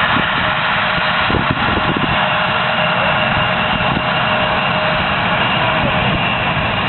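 Boeing 737's jet engines running with a steady whine over a low rumble, holding an even level.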